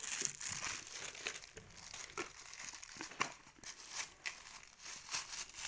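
Thin plastic wrapping crinkling and rustling in irregular crackles as it is handled around small plastic spice jars.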